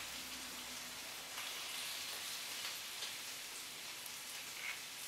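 Faint steady hiss with a few soft clicks as eggshell halves are handled, the yolk passed between them to separate the egg white.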